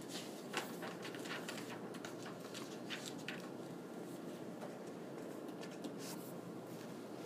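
Quiet room tone with a steady low hum and scattered soft clicks and rustles of small handling noises.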